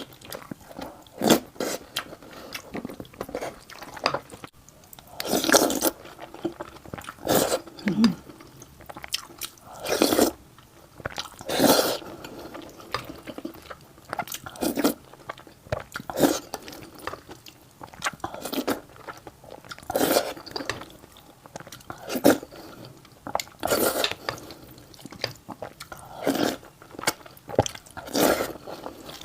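Close-miked mouth sounds of a person eating a tomato rice bowl: steady wet chewing, with louder bites and mouthfuls every one to two seconds.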